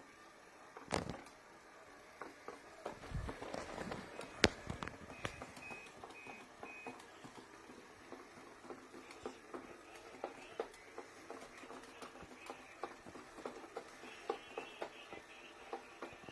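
Scattered clicks and knocks from a robot vacuum being handled, with a sharp click about four seconds in and four short electronic beeps soon after.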